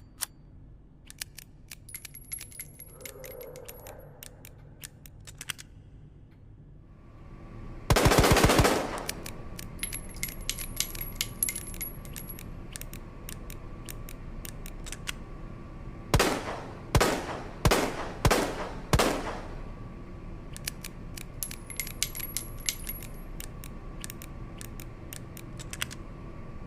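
Revolver sound effect: runs of light metallic clicks and a brief rapid volley of shots, then five single shots in a row about two-thirds of a second apart, each ringing out, followed by more clicking.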